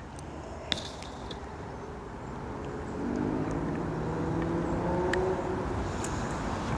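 A motor engine running in the background, growing louder and rising slightly in pitch from about three seconds in, over a low steady rumble, with a single click about a second in.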